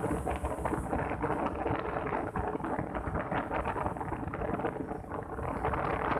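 Wind buffeting the microphone of a moving motorbike, a steady rough rumble, with the bike's engine and road noise running beneath it.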